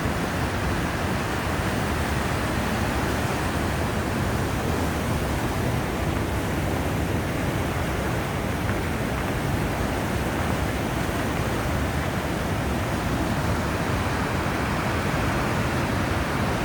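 Fast floodwater rushing in a swollen river, a steady, unbroken roar of water.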